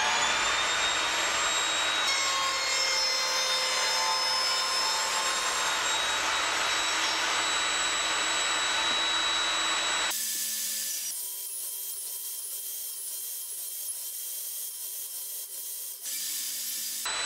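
Evolution Rage table saw running with its blade cutting into plywood, taking repeated passes to nibble a slot out to width. The saw has a steady whine, and about ten seconds in the sound drops to a quieter, thinner run.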